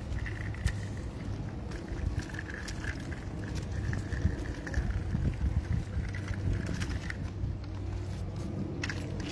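Small plastic stroller wheels rolling and rattling over rough pavement as a steady rumble, with a few sharp clicks.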